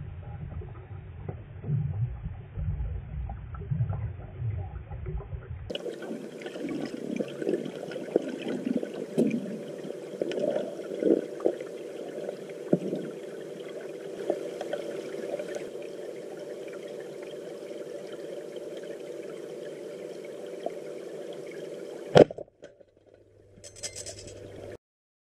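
Underwater pool sound: a low rumble of moving water, then a steady underwater hiss with crackling. About 22 seconds in, a single sharp, loud crack as the Teak Sea Sigma inverted-roller speargun, powered by three rubber bands, fires its shaft at the target.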